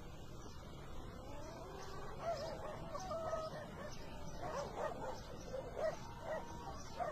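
An animal whining: a string of high, wavering cries that rise and fall in pitch, starting about a second in, over a steady low background noise.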